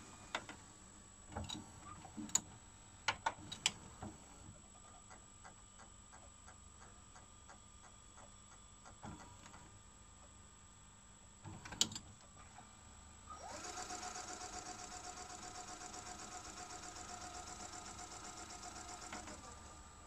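Sony SLV-EZ735AZ VHS video cassette recorder's tape mechanism: a series of clicks and clunks in the first few seconds and again just before twelve seconds, then the transport motor whirring with a fast flutter as it rewinds the cassette for about six seconds before stopping suddenly near the end.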